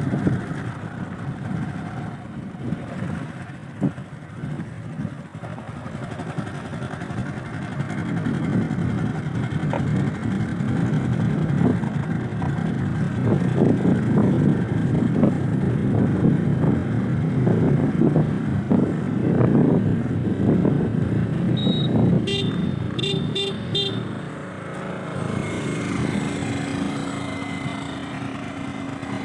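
JCB 3DX backhoe loader's diesel engine running, louder through the middle. About two-thirds through, a vehicle horn beeps about five times in quick succession.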